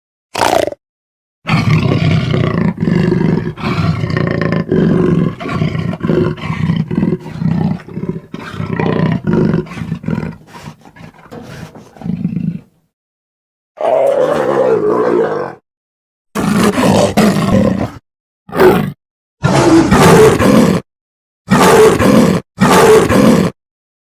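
Angry wolf growling: one long, pulsing growl of about eleven seconds, then a series of short separate growls, each cutting off suddenly into silence.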